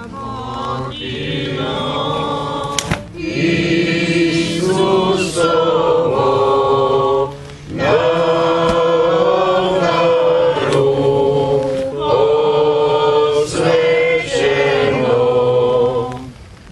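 A group of voices singing a slow hymn in long held notes, the phrases broken by two short pauses, sung during the elevation of the host at the consecration of the Mass.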